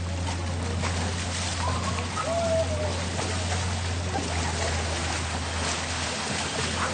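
Flowing river water with scattered splashes from elephants bathing in it.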